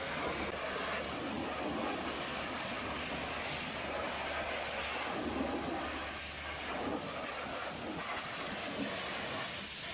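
Hot high-pressure water jet spraying steadily against a truck trailer's steel chassis and mudguard, a continuous hissing spray with a low steady hum underneath.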